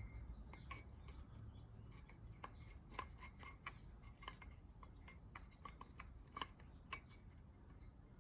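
Near silence with faint, scattered light clicks and taps of parts being handled.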